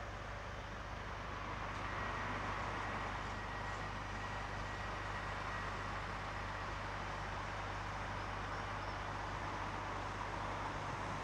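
A train at a station: a steady rushing noise over a low hum, getting a little louder about two seconds in.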